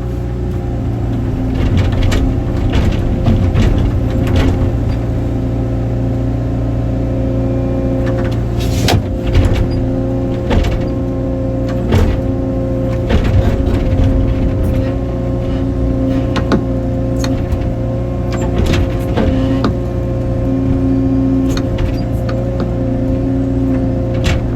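Excavator's diesel engine running steadily under load, with sharp cracks and knocks at irregular intervals.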